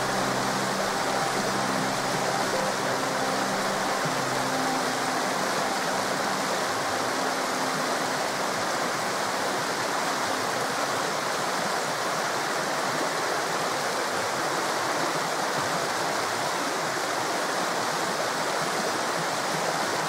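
Forest river water rushing steadily. A few low steady tones sound under it and fade out within the first several seconds.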